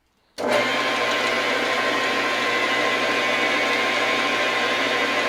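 Metal lathe running steadily, a loud even machine whir with a faint steady hum, starting abruptly about half a second in.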